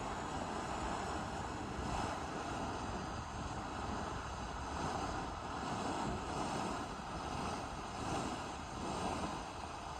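Brothers 'Fairies in a Jar' ground fountain firework spraying sparks with a steady, rushing hiss.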